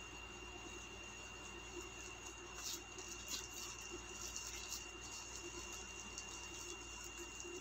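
Faint crinkling and rustling of a clear plastic zip-lock bag being handled and pulled open, with a few sharper crackles around the middle. Under it runs a steady hiss and a thin high whine.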